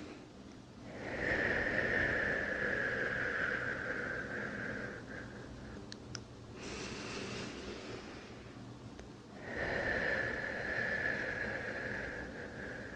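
A person breathing slowly and deeply close to the microphone: two long, airy out-breaths of about four seconds each, with a softer, hissier in-breath between them and a small click just before it.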